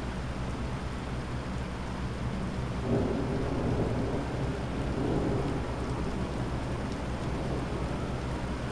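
Steady rain falling, with a rumble of thunder starting about three seconds in that swells twice and dies away a few seconds later.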